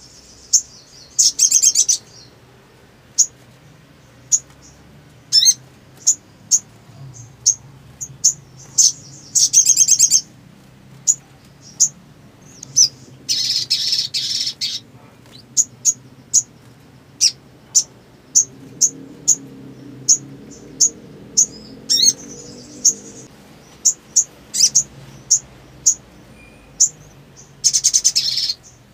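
Little spiderhunter (sogok ontong) calling: a run of sharp, high single chip notes at irregular intervals, broken by several rapid trilled bursts, the longest lasting about two seconds.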